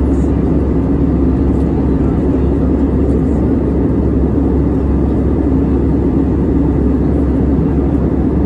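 Steady cabin drone of an Airbus A320-200 in cruise, engine and airflow noise heard inside the cabin, deep and even.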